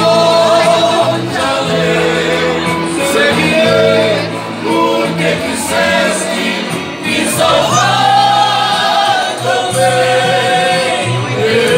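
A small group of men and women singing a Portuguese gospel hymn together, with long held notes.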